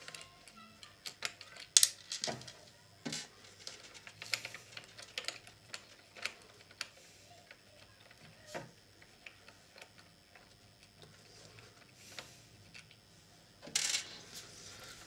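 Scattered light clicks and taps of small plastic and metal parts being handled as a swivel mount is fitted to the back of a small portable TV, with a brief louder noise near the end.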